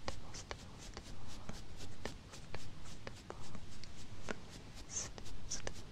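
Small makeup brush dabbing and stroking close to the microphone: soft scratchy taps several times a second, with a few brief high hisses.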